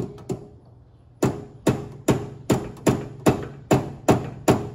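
Mallet tapping a mini lathe's tailstock sideways to bring it onto centre with the chuck. Two taps come first, then a steady run of about two and a half taps a second, each leaving a short metallic ring.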